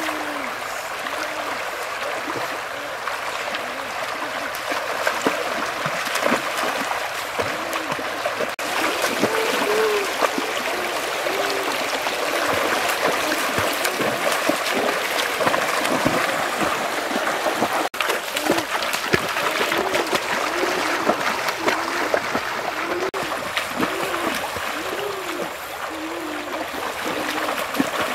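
Shallow river running and gurgling over stones, with splashing as feet wade and run through the water.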